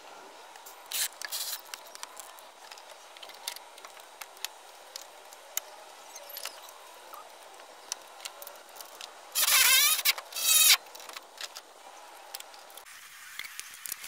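Hand work on a plastic fan shroud being fitted around a truck's radiator: scattered light clicks and knocks, and two loud scraping, rasping bursts a little past the middle.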